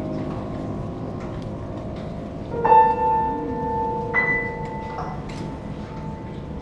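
Sparse contemporary chamber music from violin, cello, clarinet and piano: after earlier held notes fade away, a clear note enters sharply about two and a half seconds in and rings on, joined by a higher note about a second and a half later, both slowly fading.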